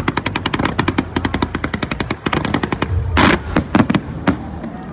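Fireworks going off in a rapid salvo of sharp bangs, about ten a second like machine-gun fire, then slowing into a few separate, louder booms, the loudest about three seconds in.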